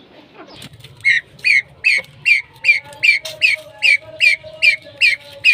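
A bird giving a rapid, even series of short high calls, about two and a half a second, starting about a second in. Under it are a faint steady lower tone and a low hum.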